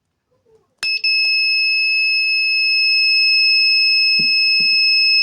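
A homemade transistor alarm's buzzer starts with a click about a second in and then sounds one continuous, unwavering high-pitched tone. This is the alarm triggered, as the circuit is built to do when its guard wire is cut. Two soft knocks come near the end.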